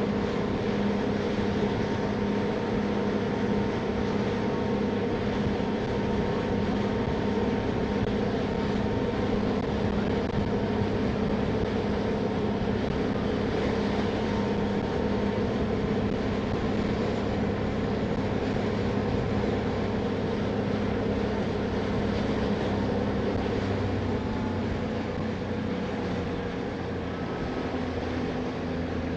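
Passenger ferry's engines running steadily, a constant hum with several held tones over a broad rushing noise, heard aboard under way; it eases slightly near the end.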